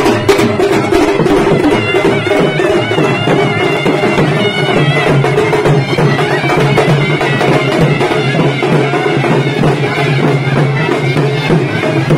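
Loud traditional processional music: drumming under a wavering, reedy wind-instrument melody and a steady drone.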